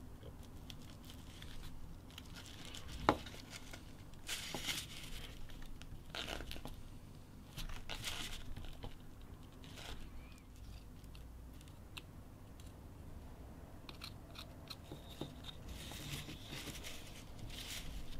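Small detail knife cutting into a wooden block in short scraping strokes, coming in scattered bursts. A single sharp click about three seconds in.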